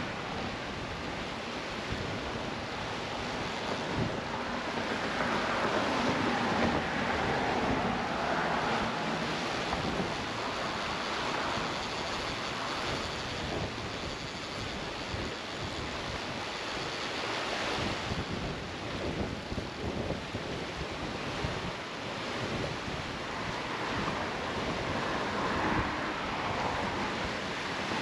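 Wind buffeting the microphone over the rushing and splashing of choppy current-driven water around a bridge pier. The water rush swells louder twice, once early and once near the end.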